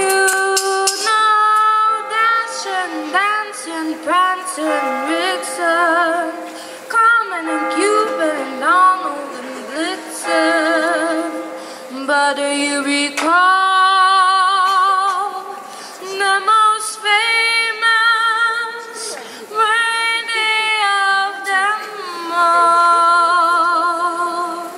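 A young girl singing solo into a handheld microphone, gliding between notes with vibrato on the held ones, in phrases with short breaths between them.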